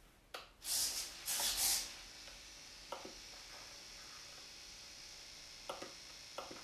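Two short swishing rustles of a hand moving over an RC transmitter, then a few light clicks from its sticks and switches being worked over a faint steady high hiss.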